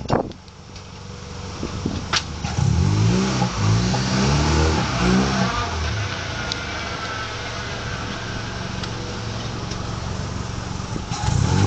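Honda Accord engine pulling away and accelerating, its pitch rising over several seconds and then settling into steady running. It is heard from outside the driver's window, with one sharp knock about two seconds in and wind noise on the microphone near the end.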